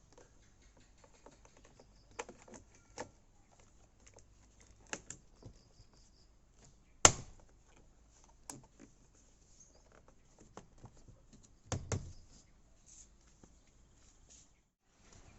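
Scattered light clicks and knocks, with one sharp knock about seven seconds in and a quick double knock near twelve seconds.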